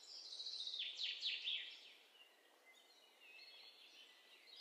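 Birds chirping faintly: a quick run of high, downward-sliding chirps in the first two seconds, then softer chirping.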